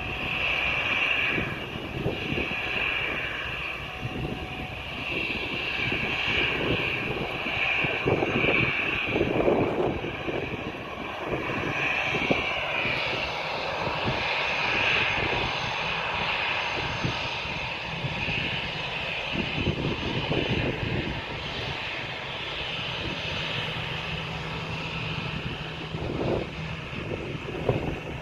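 Airliner engines running loud and steady, their whine wavering, with strong wind buffeting the microphone in uneven gusts.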